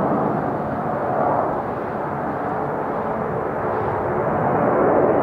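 Boeing 747's four jet engines at climb power just after lift-off, passing overhead: a steady, dense rumble that grows louder toward the end.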